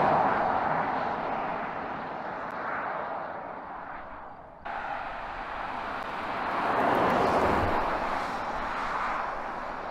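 BMW iX electric SUV driving past at speed, heard as tyre and wind noise with no engine sound, fading as the car pulls away. About halfway through the sound jumps abruptly to a second pass-by that swells to its loudest a little after seven seconds in, then fades.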